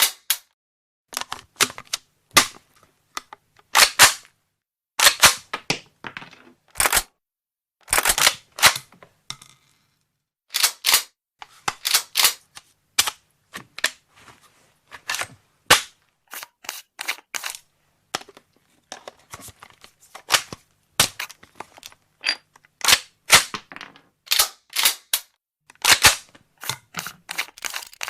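A firearm being taken apart and put back together: a long, irregular run of sharp clicks and clacks as its parts are handled and snapped into place, with short pauses between them.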